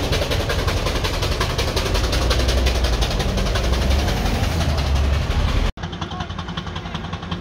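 A road vehicle's engine running close by with a fast, even beat and a strong low hum; it cuts off abruptly about six seconds in, leaving quieter engine and street sound.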